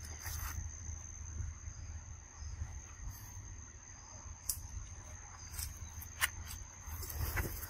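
Steady high-pitched buzz of insects, cricket-like, over a low rumble. A few sharp clicks come through in the second half, and there is a short stretch of clicking and rustling near the end.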